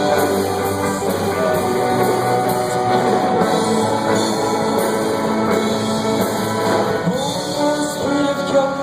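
A rock band playing a song, with guitar and drum kit and no clear sung words.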